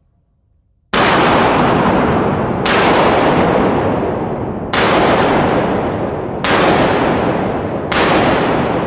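Five 12-gauge shotgun shots from a Pietta Pegaso, fired one at a time about one and a half to two seconds apart. Each loud blast leaves a long echoing tail. The first shot comes about a second in.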